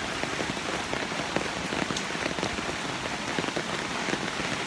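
Steady rain falling and splashing on surfaces, an even hiss dotted with many individual drop hits.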